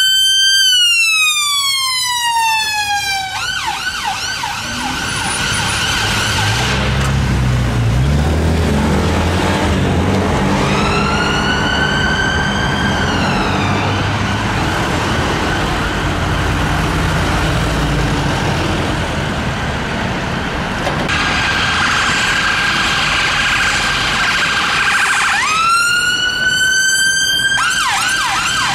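London Ambulance Service sirens alternating between a slow wail that rises and falls and a fast yelp, with the ambulance's engine rumble and traffic noise in the gaps between. A second siren, from a rapid response car, starts up in the last few seconds.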